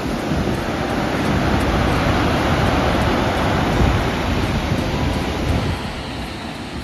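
Heavy ocean surf breaking and washing against the base of a rocky sea cliff: a broad rushing roar that swells over the first couple of seconds, peaks in the middle and slowly fades.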